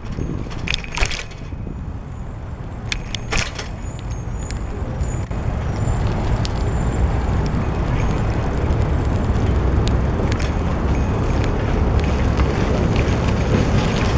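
Wind rushing over the microphone and road rumble from a moving bicycle, growing louder over the first six seconds as it gathers speed, then holding steady. A few sharp clicks or rattles in the first few seconds.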